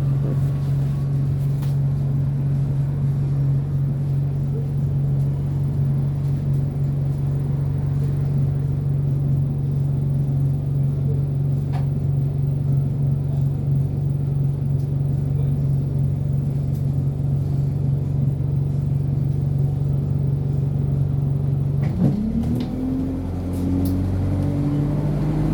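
Bus GAL SE101's engine and cooling fan running as a loud steady drone. About 22 seconds in, the pitch starts to rise steadily as the bus accelerates.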